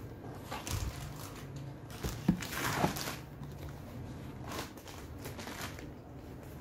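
A cardboard product box being handled and shifted: soft knocks and rustles, the loudest about two to three seconds in.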